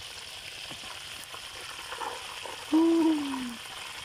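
Hot oil sizzling steadily as a whole duck deep-fries in a steel wok. About three quarters of the way through, a brief, louder low hoot-like tone sounds, falling slightly in pitch.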